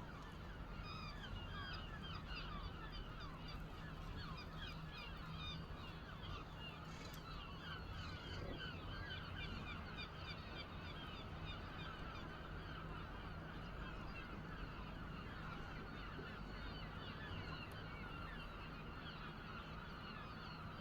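A flock of birds calling without a break, many short overlapping calls and chirps at once, faint over a low steady hum.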